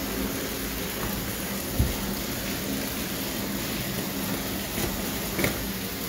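Heavy rain falling steadily, heard from inside a house, with a thump about two seconds in and another near the end.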